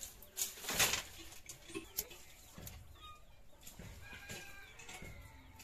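A bundle of dry firewood sticks set down on an earthen floor with a rustling clatter about a second in, followed by a few light knocks of wood. Hens cluck faintly in the background.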